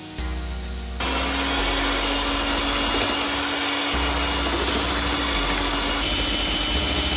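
Electric hand mixer starting about a second in and running steadily, its motor giving a steady whine as the beaters whisk eggs and sugar in a stainless steel bowl.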